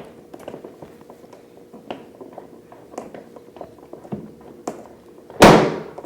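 Chiropractic drop table: a few light clicks and taps, then about five seconds in a single loud thud as the table's lower drop section falls during the adjustment.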